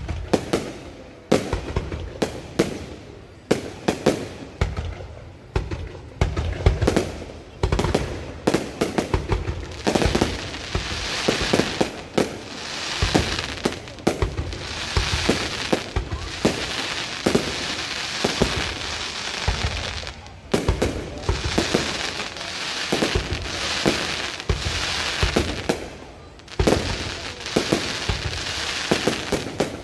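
Aerial fireworks going off: a rapid run of sharp bangs, then from about ten seconds in, repeated waves of dense crackling shells mixed with further bangs.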